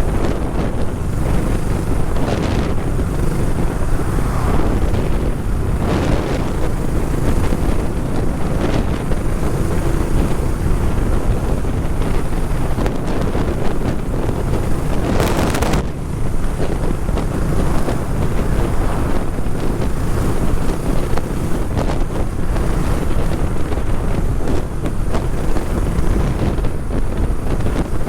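Heavy wind buffeting the microphone of a rider on the move, a loud steady rumble, with a brief louder hiss about fifteen seconds in.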